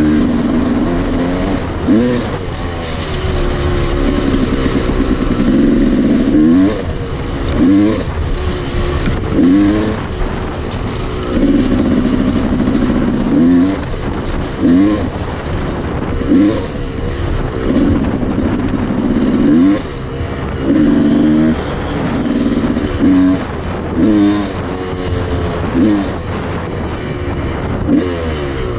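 Dirt bike engine under way, revving up and backing off again every second or two as the rider works the throttle, over a steady rushing noise of wind on the microphone.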